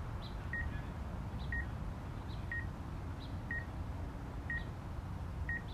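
Short electronic warning beep repeating about once a second from the DJI Air 2S drone's controller app, sounding while the drone's obstacle sensing alerts on nearby trees. A steady low background noise runs underneath.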